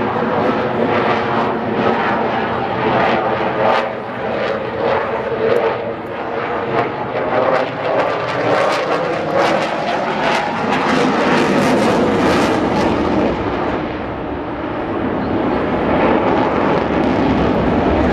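Propeller-driven aircraft engine running throughout a display flight, its pitch sagging and rising again as the aircraft manoeuvres.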